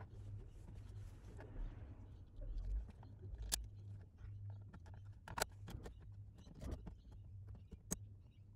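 Light clicks and knocks of a car's plastic centre console and its switches being pushed and fitted into place by hand, with a few sharper clicks about three and a half, five and a half and eight seconds in, over faint rustling and a low rumble.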